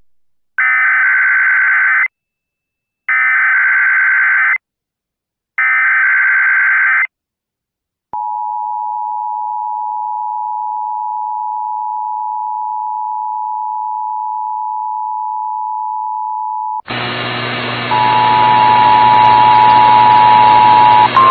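Emergency Alert System header: three bursts of screechy digital data tones, each about a second and a half long with a second's gap between them. Then comes the steady two-tone EAS attention signal for about nine seconds. Near the end it gives way to a loud, harsh buzzing noise with steady tones in it.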